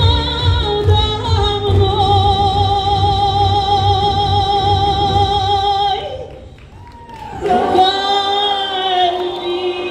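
Female singer holding a long note with wide vibrato over a pop backing track. About six seconds in the backing beat drops out, and she slides up into another long held note sung without the beat.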